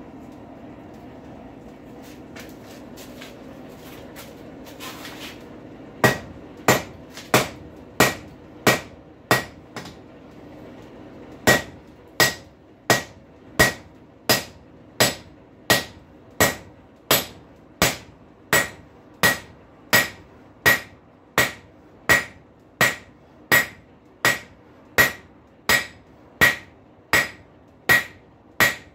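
Blacksmith's hand hammer striking a hot rail spike on an anvil to flatten its head, each blow ringing brightly. The blows come at an even beat of about one and a half a second, after a few seconds of steady low hum. There is one short pause after the first half-dozen blows.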